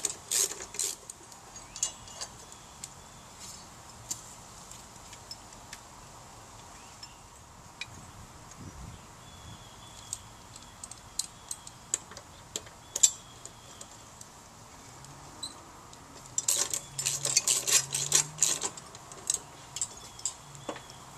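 Ratchet wrench clicking and clinking against metal as a new blade is bolted onto a lawnmower: a cluster of clicks at the start, scattered single clicks, then a long rapid run of ratcheting clicks about three-quarters of the way through.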